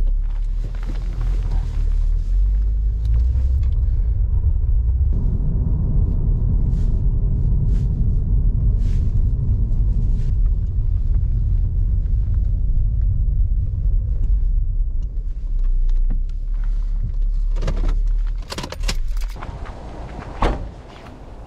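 Low, steady road and engine rumble inside a moving Acura sedan's cabin. Near the end the rumble drops away and a few sharp knocks and clicks follow.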